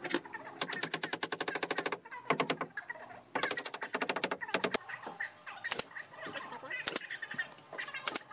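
Hammer knocking on wooden window slats, in fast runs of taps with a few single sharp blows between. Birds chirp faintly in the background.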